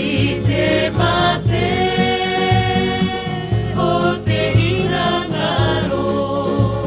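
Background music: a song with voices singing together over a steady bass beat.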